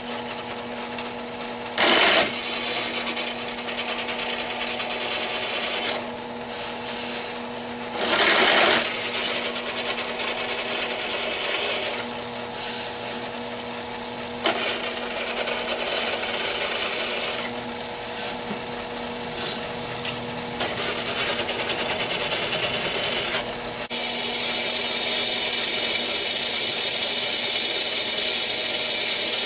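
Drill press running with a steady motor hum while a twist drill bit cuts holes through steel angle iron. The cutting comes in four bouts of a few seconds each, one per hole. A louder, steady, high-pitched cutting sound takes over for the last five seconds or so.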